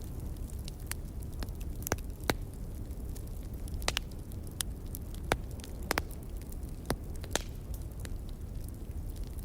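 Log fire crackling, with irregular sharp pops and snaps over a steady low rumble.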